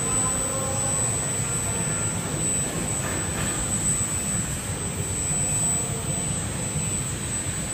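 High-frequency induction heating machine running while heating a steel workpiece red-hot in its coil: a steady low machine rumble with a constant high-pitched whine over it.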